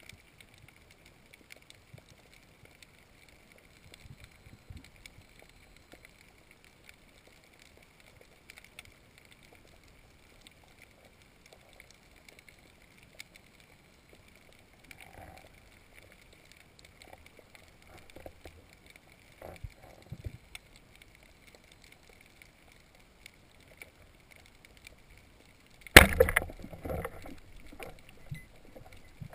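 Quiet underwater ambience with a faint steady high whine and scattered small clicks, then near the end a band speargun fires: one loud sharp crack followed by a brief rattle of the shaft and line.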